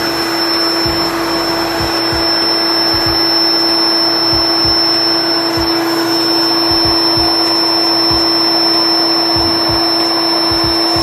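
The built-in electric air pump of a King Koil queen air mattress running steadily as it inflates the mattress: a constant whirring rush of air with one steady hum.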